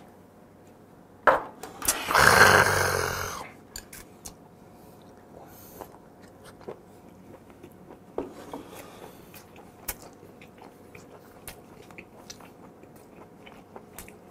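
A shot of soju is knocked back, then comes a sharp click and, about two seconds in, a loud breathy exhale lasting over a second. After that there is quiet chewing of steamed squid, with scattered small mouth clicks and smacks.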